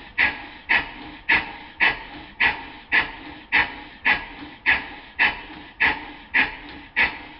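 Exhaust beats of a Stuart 5A model steam engine, slowed down to 20% speed: a short, sharp crack roughly every half second, each dying away, about thirteen in all. The slide valve is set for early admission, opening just before top dead centre at each end of the stroke, which gives this short, sharp crack.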